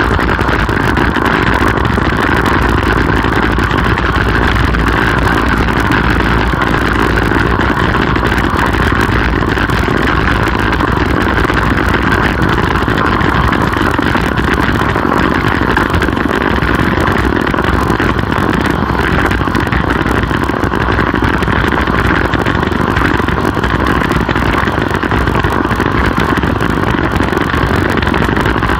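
Steady, loud rush of wind over the camera microphone on a road bike ridden at speed.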